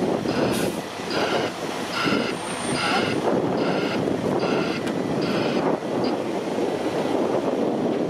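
A heavy vehicle's backup alarm beeping steadily, a little faster than once a second, and stopping about six seconds in. Under it is the continuous running of the diesel engines of an asphalt paver and a dump truck working at close range.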